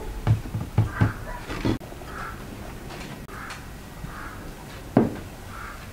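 A long thin wooden rolling pin knocking and rolling on a wooden pastry board as dough is rolled out: a cluster of dull knocks in the first two seconds, then another sharp knock about five seconds in.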